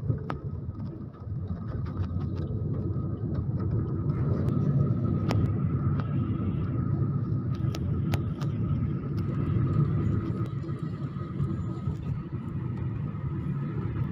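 Car road noise heard from inside the cabin while driving: a steady low rumble with a faint steady whine, and a few light clicks scattered through it.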